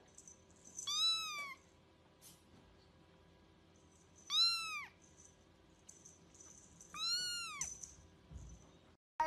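A very young kitten mewing three times, a few seconds apart. Each mew is high and thin, rising and then falling in pitch.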